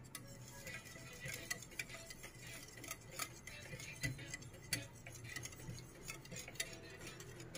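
Wire whisk beating a runny egg, cream and milk mixture in a ceramic bowl, its metal tines ticking quickly and unevenly against the bowl.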